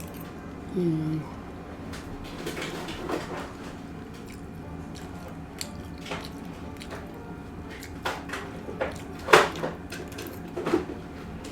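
Eating sounds: utensils clicking and scraping on a dish, with scattered sharp knocks, the loudest about nine seconds in. A short hummed vocal sound comes about a second in.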